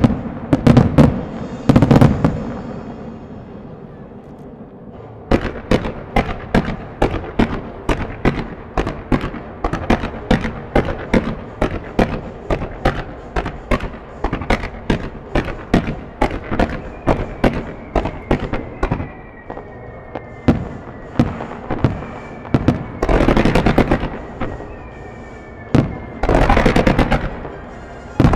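Fireworks display. A few heavy bangs come first, then a quick, even string of sharp launch cracks, about three a second, as ground-fired comets go up. Near the end come two dense, loud volleys of bursts and crackle as a barrage of shells and star mines goes off.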